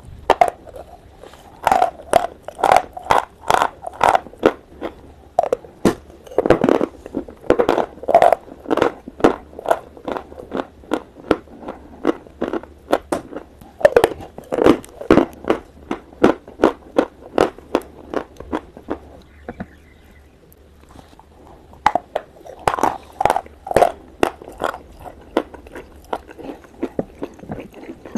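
Dry, crisp crunching of a stick of eating chalk being bitten and chewed, close to the microphone. The sharp crunches come in clusters, with quieter chewing between them and a lull a little past the middle.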